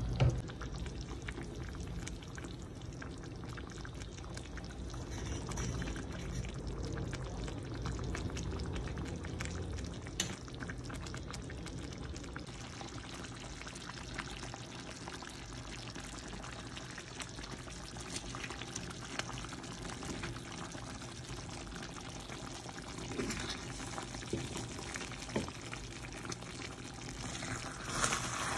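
Coconut-milk lamb curry simmering in a pan, a steady bubbling and fine crackling of the thick sauce, with a louder burst of noise near the end.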